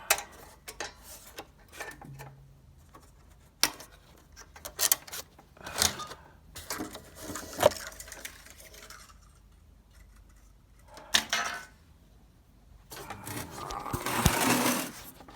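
Handling noises: scattered clicks, knocks and rubbing as things are moved and handled, with a longer scraping rustle near the end.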